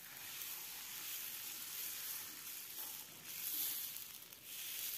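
Dosa batter sizzling on a hot griddle as it is poured and spread outward in circles with a ladle. The hiss swells and fades with the spreading strokes.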